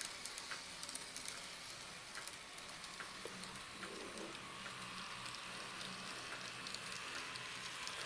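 Faint crackling hiss with scattered light clicks from an N gauge DCC model train running on its track, growing slightly louder near the end.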